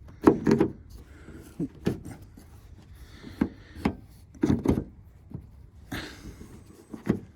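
Knocks and clicks of a Ford Mondeo mk4 exterior door handle being clipped and pushed into place in the door: about eight separate knocks, the loudest pair about half a second in and another close pair around four and a half seconds.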